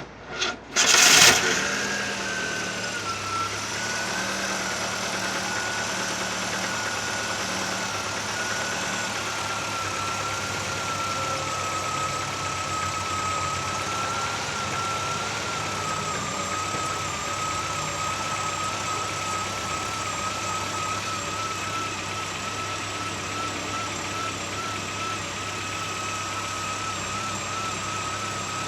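Volkswagen AP 1.6 four-cylinder engine starting about a second in, then idling steadily with a thin, slightly wavering whine over the running. This is the strange low-rpm noise the owner cannot trace: a repaired alternator with a new bearing, a new timing belt and a new tensioner have not cured it.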